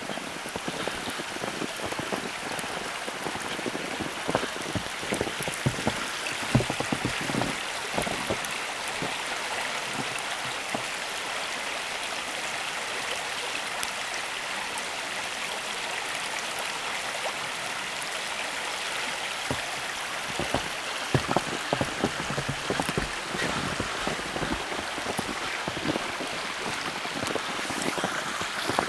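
Footsteps crunching in snow in two bouts of walking, over a steady rushing hiss.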